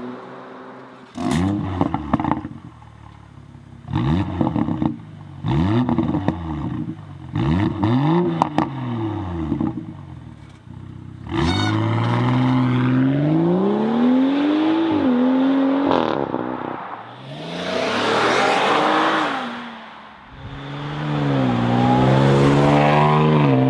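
Performance SUV engines revved through their exhausts. First comes a series of quick throttle blips, each rising in pitch and falling straight back, then longer revs that climb and drop. The sound breaks off suddenly a few times between clips.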